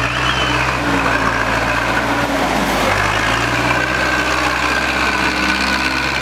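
Zetor 7745 tractor's diesel engine running under load as the tractor drives through deep mud, its note shifting briefly about two to three seconds in.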